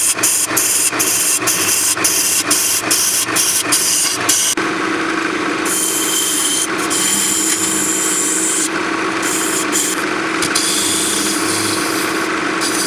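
Wood lathe running with a turning chisel cutting into a spinning apple wood lid, a hissing cut over the motor's steady hum. For the first few seconds the cut comes as a quick series of ticks, about three a second, then about four and a half seconds in it changes abruptly to a steady hiss.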